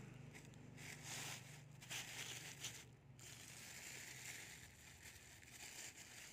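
Thin plastic bag crinkling and rustling in irregular bursts as it is handled and lifted off a potted plant.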